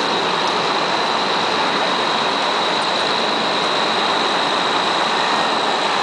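Steady, even street noise with a faint, high, steady whine running through it; no single event stands out.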